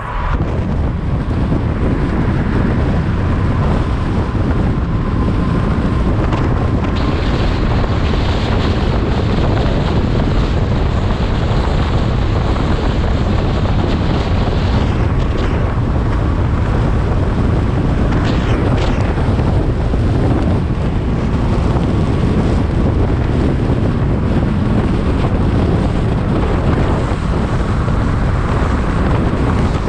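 Wind buffeting the microphone of a car moving at speed, with steady road and tyre noise underneath.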